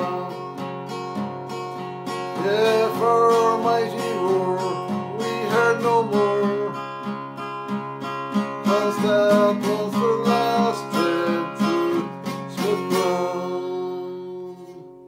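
Strummed acoustic guitar with a man singing the closing line of a ballad, drawn out; the final chord rings and fades out near the end.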